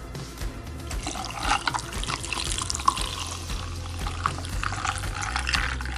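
Hot Americano coffee being poured over ice cubes in a cup: a running pour and splash of liquid, with many small clicks and crackles from the ice.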